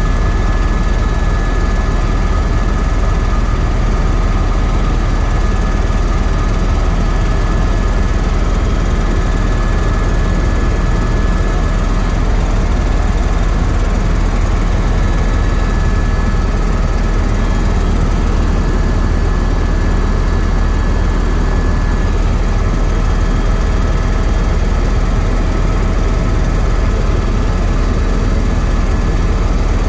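Helicopter in cruising flight heard from inside the cabin: a steady, loud drone of rotor and engine, heaviest in the low end, with a thin steady whine above it.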